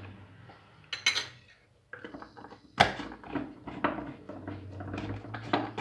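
Kitchen clatter of a bottle and utensils being handled: a light clink about a second in, a sharp knock near three seconds, then a run of light clicks and taps.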